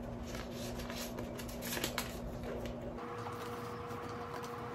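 Paper card and booklet being handled and slid into a leather camera bag's pocket: soft paper rustles and small taps and clicks.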